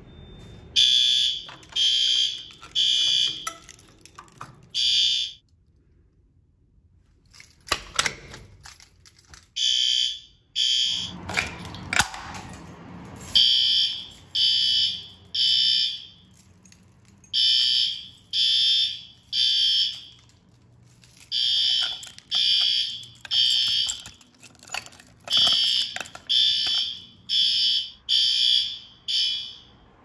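Fire alarm horns sounding in a temporal-3 pattern: groups of three high blasts about a second apart, each group followed by a short pause, repeating. The horns drop out for a few seconds about a fifth of the way in, where a few sharp clicks are heard.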